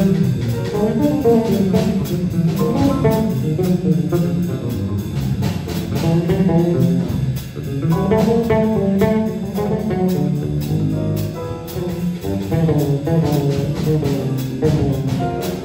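Jazz played by a small group: a guitar runs a quick lead line over a bass.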